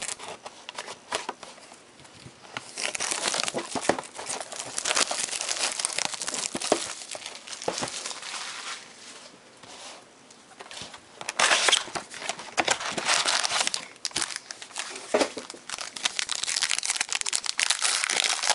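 Plastic shrink wrap and foil trading-card packs crinkling and tearing as a sealed card box is unwrapped and opened and its packs are torn open. It comes in three long stretches of dense crackling, the last running up to the end.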